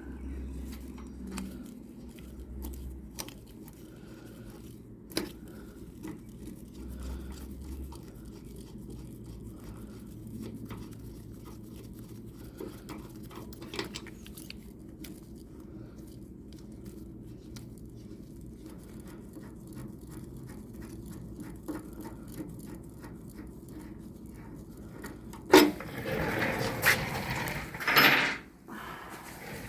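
Hand tools being handled on a motorcycle's front wheel: a few sharp metal clicks over a low background, then louder clattering and scraping near the end.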